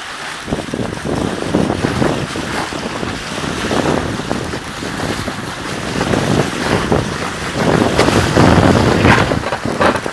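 Wind buffeting the microphone aboard a sailing catamaran under way, with water rushing along the hulls. The noise swells and falls unevenly with the gusts.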